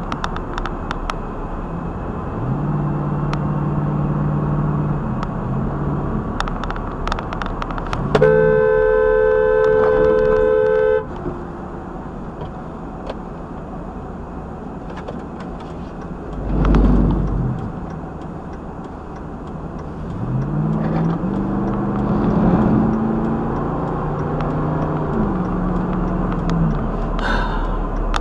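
Car horn held for about three seconds, a third of the way in, over steady road and engine noise heard from inside a car at highway speed. The engine's pitch rises and holds twice as the car speeds up.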